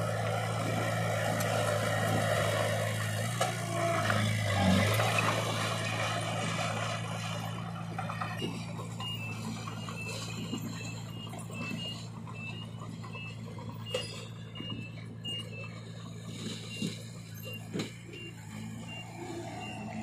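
Heavy diesel engines of a dump truck and a small crawler bulldozer running steadily, louder in the first half. From about eight seconds in, a string of short high beeps at two alternating pitches sounds over the engine, with a few faint knocks.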